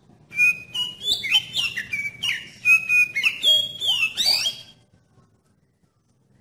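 Oriental magpie-robin (kacer) singing a fast phrase of varied clear whistled notes and sliding glides, stopping a little before five seconds in.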